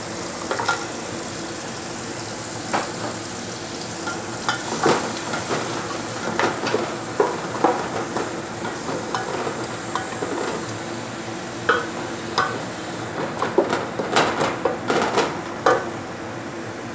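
Chopped onions and whole spices sizzling in butter in an aluminium pot, stirred with a wooden spoon that scrapes and knocks against the pot again and again. The knocks come thickest near the end.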